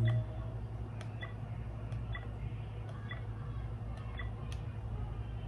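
Faint, regular ticking: pairs of light clicks about once a second over a steady low hum.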